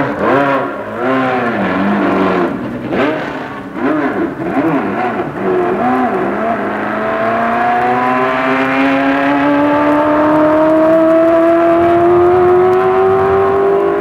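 Repco Brabham 3-litre V8 racing engine being warmed up: a series of quick throttle blips, the pitch jumping up and dropping back several times. About halfway through it accelerates, the pitch climbing steadily for several seconds before levelling off near the end.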